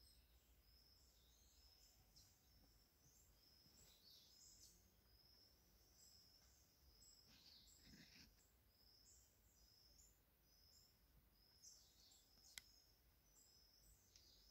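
Near silence in the forest, with faint, short, high-pitched bird chirps repeating throughout. A single sharp click sounds late on.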